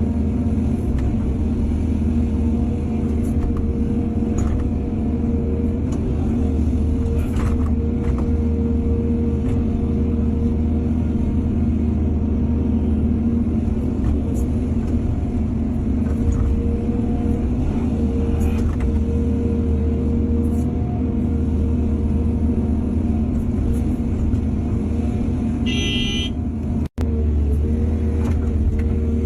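Excavator diesel engine running steadily under load, with occasional faint clanks. A short high-pitched beep sounds near the end, followed by a split-second cut in the audio.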